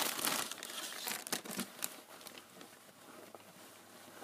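Plastic zip-lock bag and white paper wrapping crinkling and rustling as hands unwrap a small toy inside. The crinkling is densest and loudest in the first second and a half, then turns to softer rustling.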